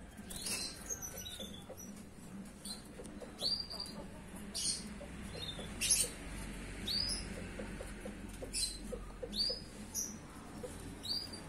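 Young canary, about four months old and only just starting to find its voice, giving short high chirps at irregular intervals, roughly one a second, each a quick hooked note.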